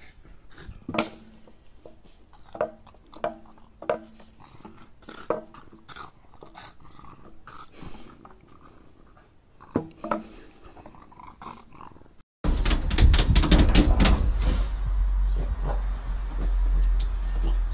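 A dog making a series of short vocal sounds, about seven in all. About twelve seconds in, the sound changes abruptly to a louder, dense noise with a heavy low rumble.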